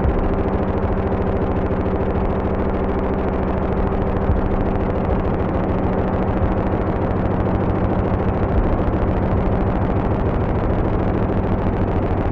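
Dark ambient hardware synthesizer jam: a steady, dense drone of held low notes under a noisy, grainy texture.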